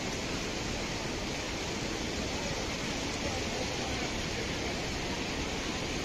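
Steady rushing of water from the Chaparai waterfall, an even, unbroken noise.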